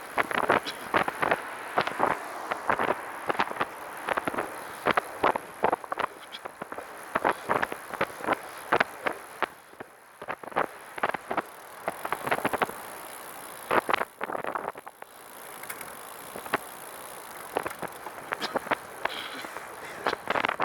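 Catrike 700 recumbent trike rolling along with a strange, random rattle from behind the seat, possibly near the rear wheel. It comes as irregular sharp clicks, bunched several to a second with short gaps, over steady tyre and wind noise. Its cause is not found.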